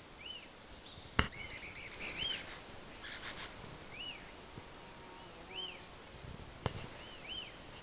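Magellanic woodpecker knocking on a tree limb with its bill: sharp single knocks about a second in and again near the end, the first the loudest. Short, arched, high call notes repeat every second or two throughout.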